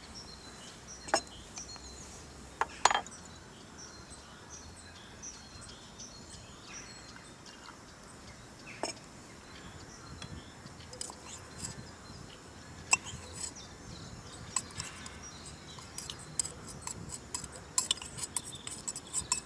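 Scattered metal clinks and clicks from handling the parts of an aluminium moka pot, with a quicker run of clinks near the end. Faint bird chirps in the background.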